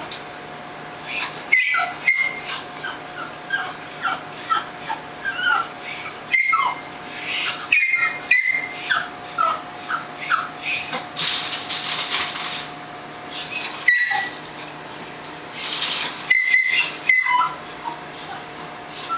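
Many short, high-pitched animal squeaks and chirps, some sliding in pitch, coming irregularly through the whole stretch over a faint steady hum.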